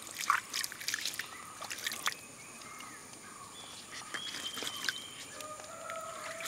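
Shallow running stream water splashing and dripping as wild colocasia leaves are rinsed by hand, with a cluster of splashes in the first two seconds. Faint whistling calls follow in the second half.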